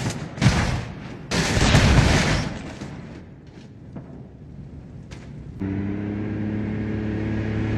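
Several loud booms in the first two and a half seconds, then a steady, even motor hum that starts suddenly about five and a half seconds in.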